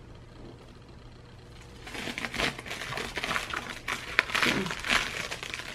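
Plastic wrapping being pulled off and crinkled by hand: a run of irregular crackling rustles and small clicks, starting about two seconds in.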